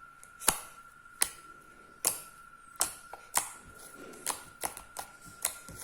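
Fluffy homemade slime being squeezed and pressed by hand to make it click: about ten sharp clicking pops as trapped air bursts, irregularly spaced and coming a little faster in the second half.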